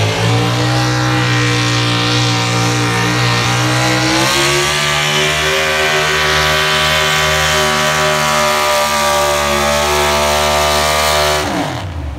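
A pulling truck's engine runs at full throttle as it drags a weight-transfer sled down the track. Its pitch climbs about four seconds in and then holds steady. Near the end the engine falls away sharply.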